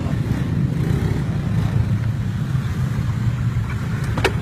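Small motor scooter engine running with a steady low drone, and a short sharp click near the end.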